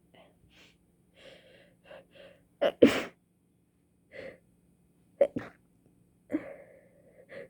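A person's sneezing fit from a stuffy nose: soft gasping in-breaths, then a string of sharp sneezes, the loudest about three seconds in and two more close together near the middle.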